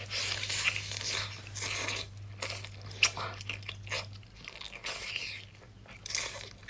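Close-miked eating: biting and chewing a large mouthful of seafood meat, with irregular wet crunches and smacks.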